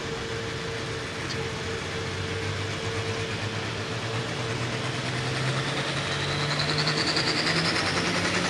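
Limited Pro Stock pulling tractor's turbocharged diesel engine running at the line, its revs building slowly, with a high turbo whine rising in the last few seconds as it is brought up before the launch.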